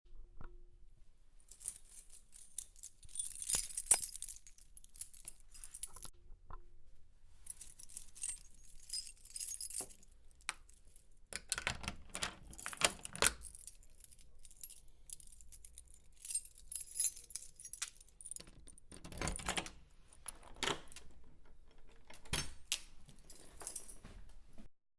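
Small metal objects jingling and clinking in about six separate shaken bursts, with single sharp clicks between them.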